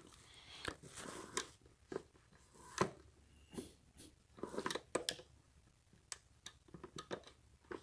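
Faint, scattered clicks, knocks and brief scrapes of a Black & Decker flip waffle maker's plastic housing and rotating stand as it is handled and turned on its side, with a denser cluster of handling noise about halfway through.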